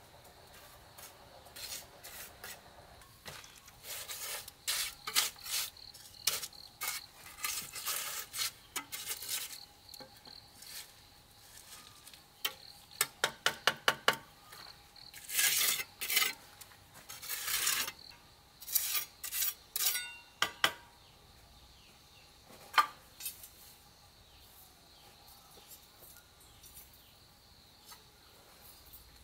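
Irregular scrapes and sharp clicks of hand work on a hard surface, with a quick run of about eight ticks partway through and denser scraping a little later, over a steady high-pitched insect drone.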